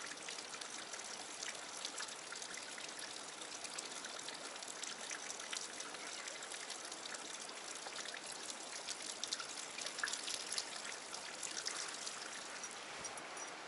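Steady, soft trickle of water running over rock into a pool, dotted with many small drip-like ticks, a few of them a little louder past the middle.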